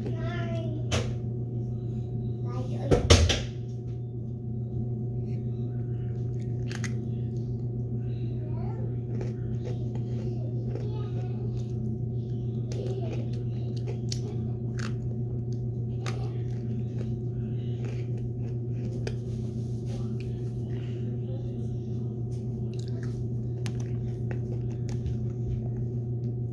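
Steady low hum of a running ceiling fan's motor, with faint chewing and small clicks as a chocolate sandwich cookie is eaten. A loud thump comes about three seconds in.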